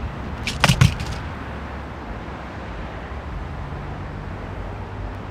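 A quick rattle of four or five sharp clicks from a plastic pill bottle handled in the hand, about half a second in, over a steady low rumble.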